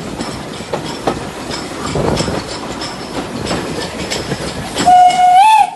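Train carriage wheels clicking over rail joints while running, heard on board. Near the end a locomotive sounds a loud single-pitched blast that holds steady, rises slightly, and cuts off suddenly.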